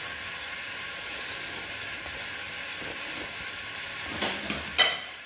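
Steady background hiss. Near the end, a metal spoon scrapes and clinks a few times against a ceramic soup bowl, with one sharp clink the loudest.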